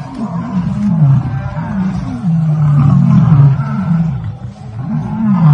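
Lion giving a long run of low roars and growls, the pitch sliding up and down with hardly a break.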